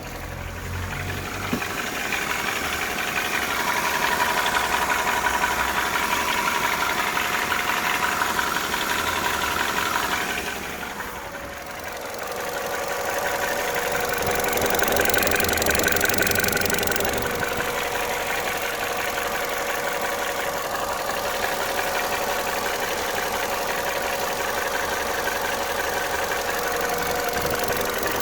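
Vauxhall Corsa D petrol engine running at idle with a repetitive knocking noise, a cold-start noise that the owner says fades once the engine is warm. The owner is unsure whether it is piston slap, lifters or rod knock. The sound dips briefly about eleven seconds in, then comes back louder.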